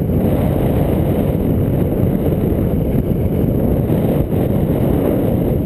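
Steady low rumble of wind buffeting an action camera's microphone as a sit-skier glides down a groomed piste.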